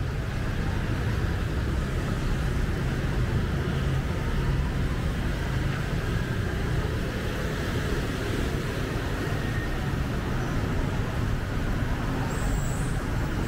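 City street traffic: a steady, unbroken noise of passing vehicles.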